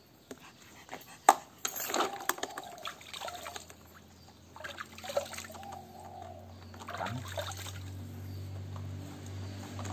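Water sloshing and splashing in a plastic basin as a puppy is bathed in it, with a sharp knock about a second in. A low steady hum comes in during the second half and grows louder toward the end.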